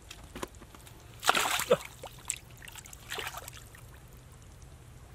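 Hands splashing and scooping in shallow muddy water: a few short splashes, the loudest about a second in and another about three seconds in.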